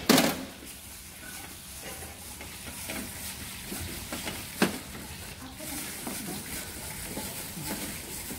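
Gloved hand scooping and stirring shrimp siomay filling in a plastic bowl, with small scattered scrapes and clicks. There is a sharp knock at the start and another about four and a half seconds in, over a steady hiss.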